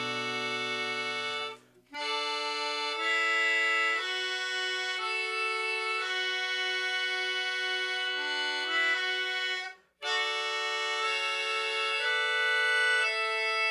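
Background music: a slow melody of held, reedy accordion notes. It breaks off briefly about two seconds in and again about ten seconds in.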